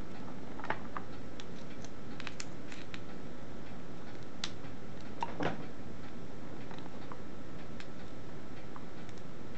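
Irregular light clicks and taps from a D-cell battery and multimeter test-lead probes being handled and pressed against the battery's terminals, over a steady background hiss.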